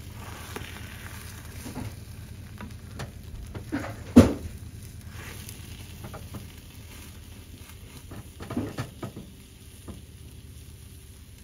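Egg sizzling in a rectangular tamagoyaki pan as a slotted spatula turns the rolled omelette and scrapes the pan, with a sharp knock about four seconds in and a few smaller knocks near nine seconds.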